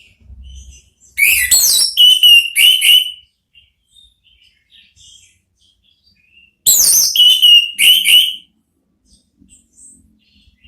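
Orange-headed thrush singing the loud, open 'ngeplong' song: two phrases of sweeping whistles, each ending in a few clear repeated notes, about five seconds apart, with soft twittering in between.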